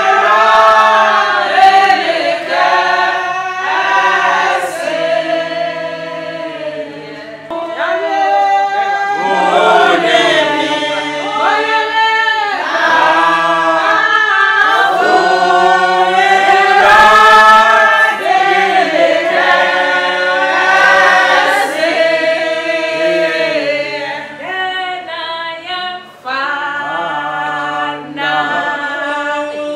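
Background music: a choir singing in harmony, several voices together with little or no instrumental backing.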